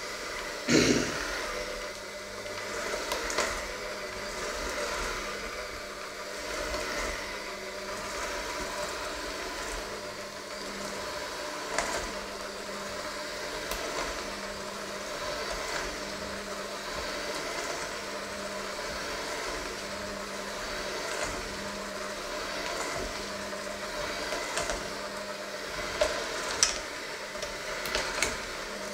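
Electric hand mixer running steadily, its beaters working a thick dough in a stainless steel bowl. Sharp clicks and knocks come as the beaters strike the bowl: the loudest about a second in, and several near the end.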